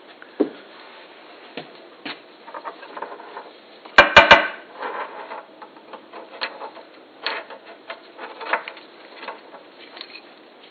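Handling clatter from a tractor shift lever with its coil spring and a deer-antler knob being picked up and fitted together on a steel workbench: scattered clicks and light knocks, with three quick sharp knocks about four seconds in as the loudest sound.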